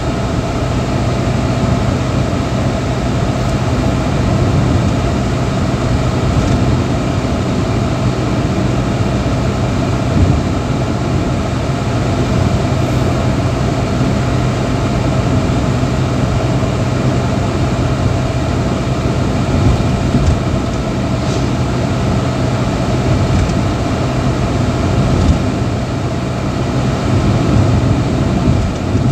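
A car driving at a steady speed, heard from inside the cabin: an even engine hum mixed with tyre and road noise.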